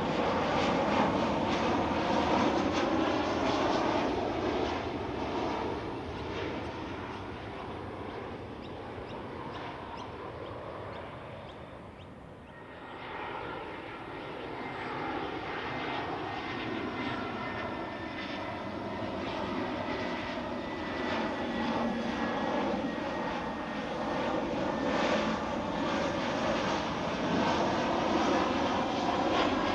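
Jet airliners on landing approach. A Boeing 737-800's engine roar falls away over the first twelve seconds or so, then, after a brief dip, an Airbus A319's engine roar builds steadily, with a thin high whine above it in the later part.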